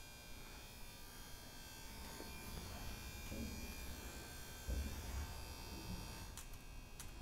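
A faint, steady electrical buzz, with a few soft low thuds and two sharp clicks near the end.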